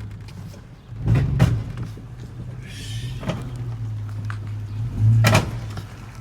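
A 2002 Chevy Silverado 2500 pickup drives through a turn with a steady low drone. Two heavy clunks come from the driveline, one about a second in and one around five seconds in. The owner suspects a worn U-joint, the drive shaft or the rear differential.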